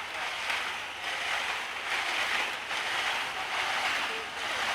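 Ice and salty water sloshing inside a hand-rocked ice cream freezing machine, in swells roughly once a second.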